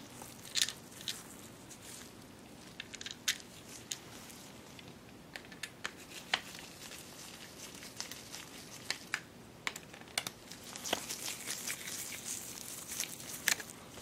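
Handling of a small plastic wiper switch assembly: scattered light clicks and taps, then a stretch of rustling near the end.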